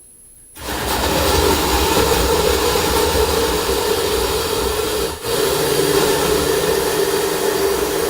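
Countertop blender switched on about half a second in and running steadily at full speed, blending a smoothie with ice; its sound dips for a moment about five seconds in.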